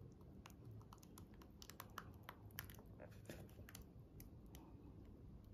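Very faint, irregular clicks and crinkles from a clear plastic bag being squeezed as thick white plaster mix is poured out of it into a plastic volcano mould.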